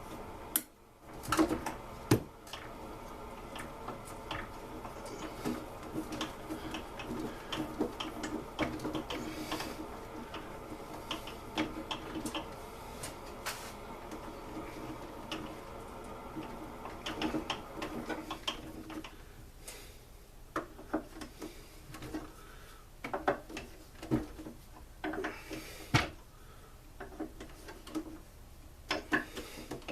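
Hand tools clicking, scraping and knocking against the metal of a backpack blower's muffler while working at screws seized by heat, with a few louder knocks near the start and about 26 seconds in. A steady hum runs underneath and drops away about two-thirds of the way through.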